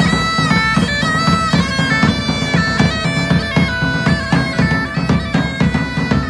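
Bagpipes playing a melody over a steady drone, with drums beating a regular rhythm underneath.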